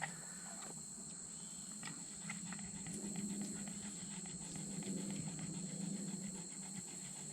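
Steady high trilling of insects, with a soft, rapid ticking and rustling close by from about two seconds in.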